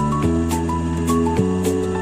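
Background music: a gentle melody of single notes over held chords and bass, with a soft, steady beat.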